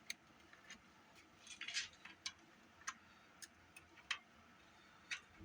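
Faint, irregular small plastic clicks and taps, about ten over several seconds, as the buttons of a Sony Walkman cassette player are pried and popped out.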